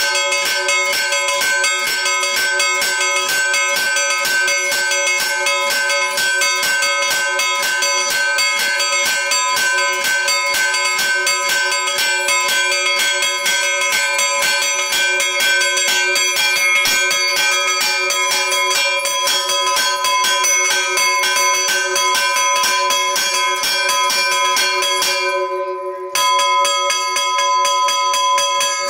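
Two bronze church bells chimed by hand, their clappers pulled on chains to strike in a rapid, continuous peal. The strikes break off briefly a little before the end, then resume.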